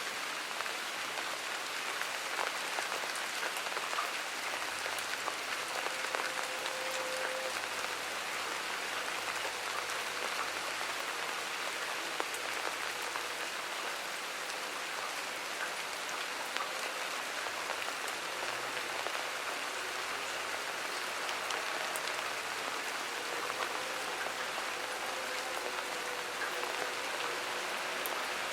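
Steady rain falling, an even hiss with single drops ticking close by.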